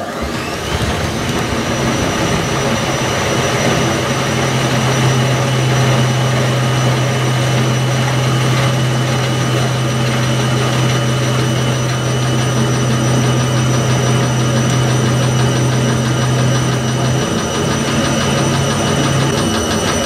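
1985 Indesit 822 washing machine spinning its drum at about 400 rpm, a steady motor-and-drum hum with a high whine. The whine rises briefly about half a second in, then holds steady.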